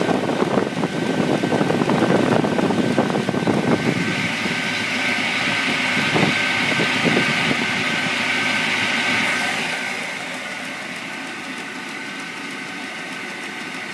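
Historic circular saw with a 9 hp drive running. For about the first four seconds it is a rough, dense noise. It then becomes a steadier, higher whine, which grows quieter about ten seconds in and carries on steadily.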